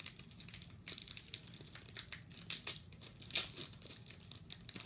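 Foil wrapper of a Pokémon card booster pack crinkling and crackling irregularly as it is torn open and handled, with a few louder crackles.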